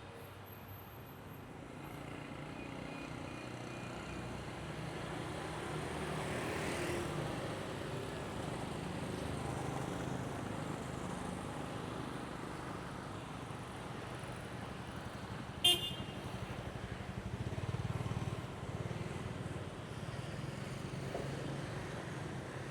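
Road traffic passing steadily, with a brief vehicle horn toot about two-thirds of the way through, the loudest moment.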